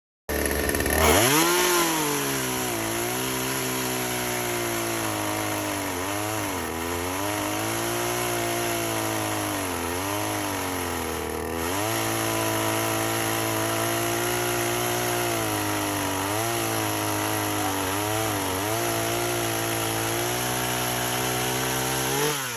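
Chainsaw spinning up suddenly and then cutting wood. Its motor pitch sags several times as the chain bites under load and recovers between bites.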